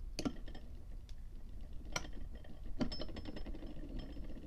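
Light metallic clicks and taps of a brass lighter case being set between the steel jaws of a bench vise: three sharper clicks with smaller ticks between them, over a low steady hum.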